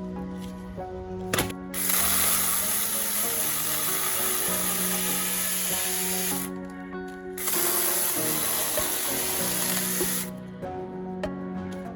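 Small battery-powered mini chainsaw running and cutting, in two bursts of about five and three seconds that start and stop abruptly, with background music.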